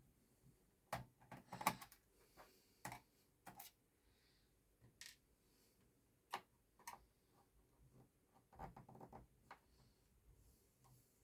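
Scattered small clicks and taps of a screwdriver and screws on a laptop's plastic chassis as the screws under the keyboard are taken out, in two short clusters with single ticks between.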